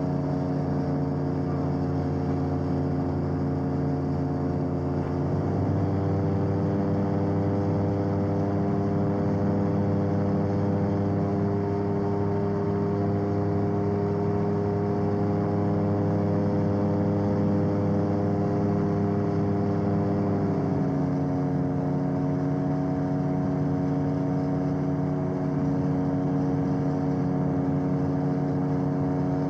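Engine of a BAD-12 Gyrotrainer cabin gyroplane running steadily in flight, heard from inside the cabin. Its note steps down about five seconds in and back up about fifteen seconds later.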